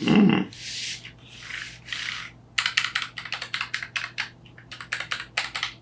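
Soft rubbing and sliding noise for about two seconds, then rapid keystrokes clicking on a Keychron K7 Pro low-profile mechanical keyboard, several keys a second, from about halfway in.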